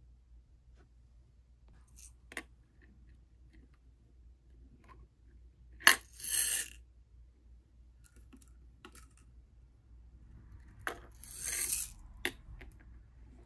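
Glass clinking and scraping against the glass globe of a plasma ball lamp: a few sharp clicks with short ringing scrapes, the loudest about six seconds in and again near the end, over a faint steady low hum.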